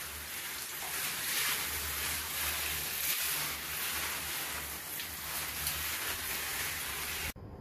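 Water from a hand-held shower head spraying onto areca palm fronds and a tiled wall: a steady hiss of spray and splashing that cuts off suddenly near the end.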